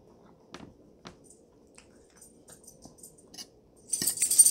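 Soft chewing and mouth smacks with the lips closed. About four seconds in, a metal fork scrapes and clinks against a plate as it cuts into food; this high, ringing scrape is the loudest sound.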